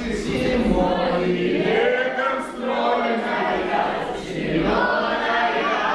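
A group of children and adults singing a song together while holding hands in a round dance.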